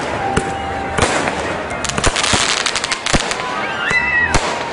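Fireworks going off: sharp bangs at irregular intervals, with a dense run of rapid crackling about two seconds in.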